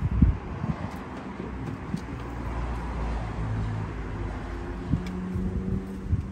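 A motor vehicle's engine running nearby, a steady low hum, with a few dull knocks and bumps about the first second.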